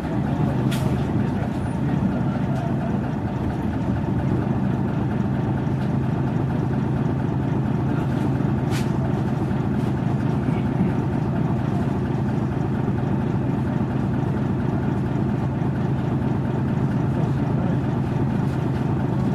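Mitsubishi P-MP218M bus's V8 diesel engine running with a steady, unchanging drone, heard from inside the passenger cabin. Two brief clicks sound, about a second in and about nine seconds in.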